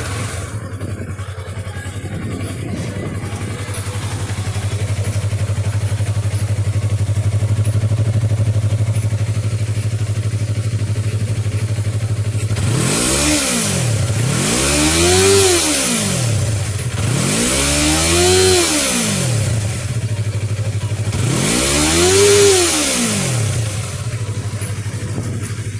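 Yamaha YZF-R3 (2019) 321 cc parallel-twin engine starting through its stock exhaust and settling into a steady idle. After about twelve seconds it is revved four times, each quick rise and fall in pitch dropping back to idle.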